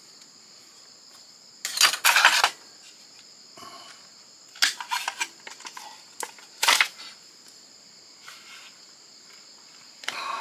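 Plastic and metal parts of a fax machine clattering and rattling as it is pulled apart by hand. The clatter comes in several short bursts: two about two seconds in, a cluster near the middle, and others near the end.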